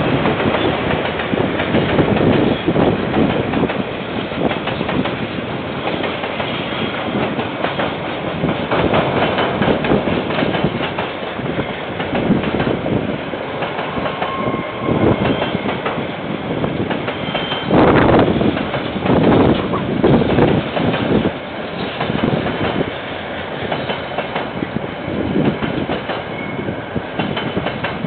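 Diesel-hauled KiwiRail freight train rolling past, its locomotives and then a long string of container wagons making steady wheel-on-rail noise that swells and eases. A few short, faint wheel squeals come through in the middle.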